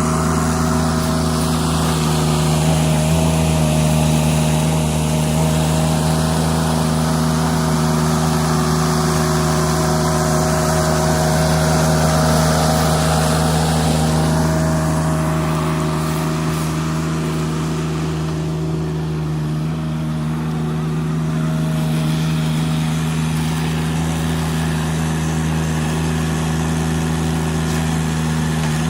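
Engine of a Taelim LEX-T18 mini loader running steadily at one constant speed, a hum that holds the same pitch throughout.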